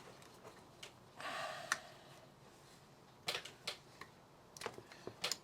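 Scattered sharp clicks and a brief scratchy rustle of hands handling a loose wire and a wooden clothes peg while clipping the wire back on.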